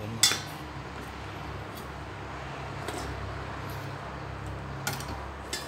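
A kitchen knife tapping on a wooden chopping board while slicing green beans: one sharp tap just after the start and two lighter taps near the end, over a steady low rumble.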